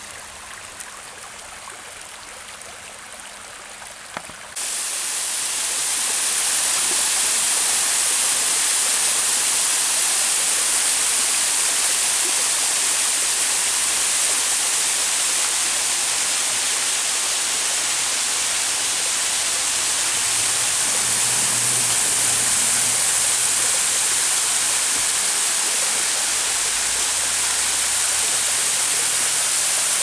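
A shallow creek trickling over stones, then, about four and a half seconds in, a sudden change to the steady, louder rush of a small waterfall cascading down a rock cliff.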